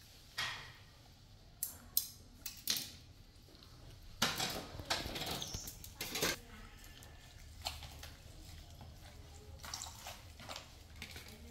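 Scattered light knocks and clinks of plastic bowls and kitchenware being handled on a kitchen counter, a dozen or so separate taps spread over the seconds.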